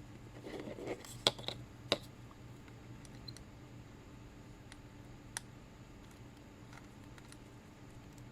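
Light handling clicks and taps of small electronics test gear on a workbench, with two sharper clicks about one and two seconds in and a few faint ticks after, over a faint steady low hum.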